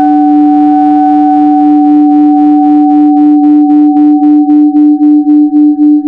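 Synthesized emergency alert alarm tone: a loud, steady two-pitch drone that begins to pulse, the pulsing growing deeper toward the end at about four beats a second.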